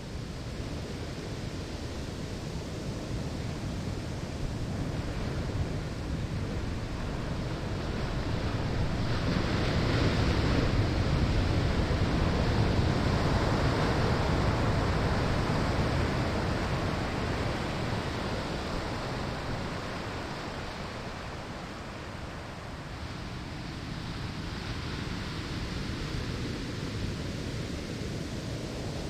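Ocean waves breaking on a sandy shore, a steady rushing surf that swells to a louder crash about a third of the way in, then recedes, with a smaller surge near the end.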